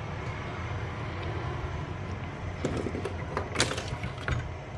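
Steady low background hum, with a few light clicks and taps in the second half from hands handling the open welding inverter's circuit board and wiring.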